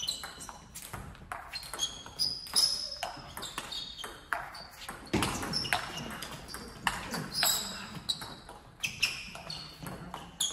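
Table tennis rally: the ball clicks sharply and irregularly off the rackets and the table as it goes back and forth.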